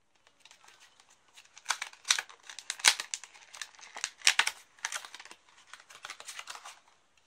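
Clear plastic blister packaging crackling and popping as it is handled and pulled open by hand: an irregular run of sharp crinkles and snaps, loudest about two to four seconds in and thinning out near the end.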